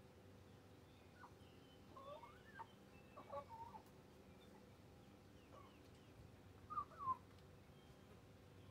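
Hens giving short, soft clucks and chirpy calls in scattered bursts, the loudest pair about seven seconds in, over a faint steady hum.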